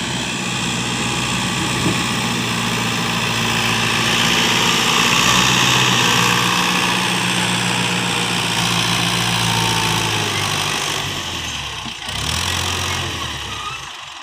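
Fiat 640 tractor's diesel engine running steadily under load while it pushes and levels soil with a rear blade; the engine note drops lower about three seconds before the end as it eases off.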